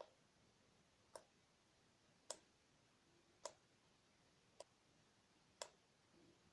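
Water dripping from a tap, one faint, sharp plink a little over every second; six drops.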